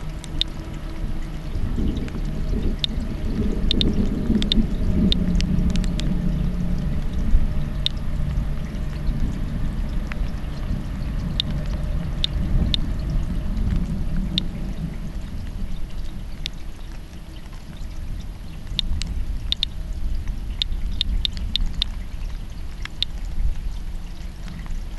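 Radiation Alert Inspector Geiger counter clicking at irregular intervals, one or two clicks a second: each click is one detected count, in step with a display reading of about 100 to 130 counts per minute. A low steady rumble runs beneath.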